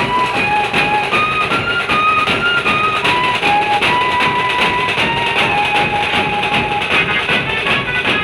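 Indian band-party music: an electronic keyboard lead melody in long held notes that step up and down, over fast, busy drumming.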